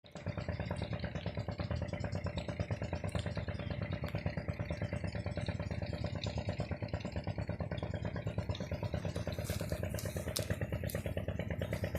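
An engine running steadily with a fast, even pulse, and a few sharp clicks near the end.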